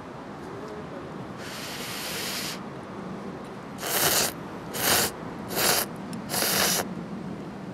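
A woman slurping tantanmen noodles: four loud, short slurps about a second apart, after a softer breathy hiss about a second and a half in.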